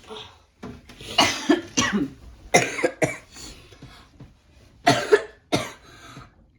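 A person coughing several times, in two groups with a short pause between them.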